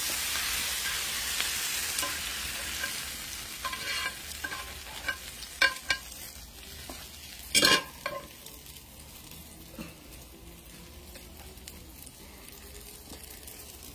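Sautéed peppers and onions sizzling in a skillet, the hiss loudest over the first few seconds and then fading, while metal tongs lift them out with scattered clicks and scrapes. There is one louder clack about halfway through.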